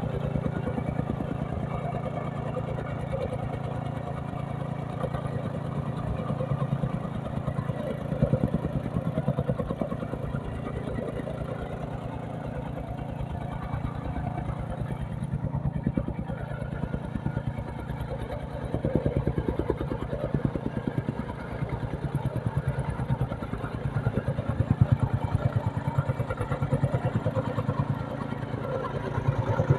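Gasoline tamping rammer compacting loose soil: its small engine running steadily while the shoe pounds the ground in a fast, even rhythm.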